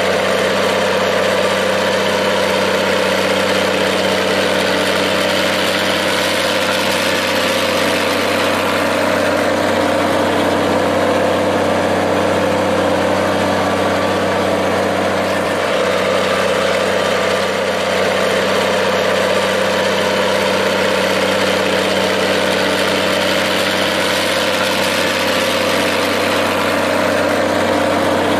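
Minneapolis-Moline tractor engine running steadily at an even, unchanging speed.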